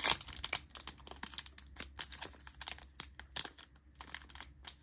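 Wrapper of a Panini Mosaic basketball card pack crinkling and tearing as it is ripped open by hand, a run of quick sharp crackles; the pack is tearing unevenly.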